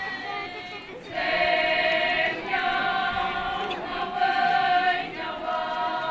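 A group of Konyak Naga women singing a chant in unison, starting about a second in with long held notes in short repeated phrases.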